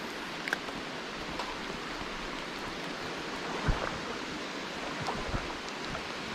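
Steady rush of a high-running river, with a single dull knock a little past halfway.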